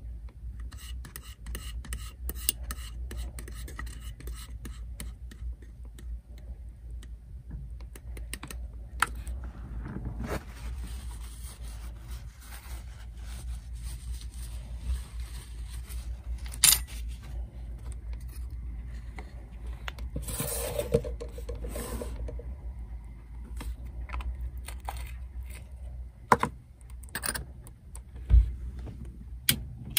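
Scattered light clicks and short scrapes of small plastic model parts and hand tools being handled on a workbench, over a steady low hum.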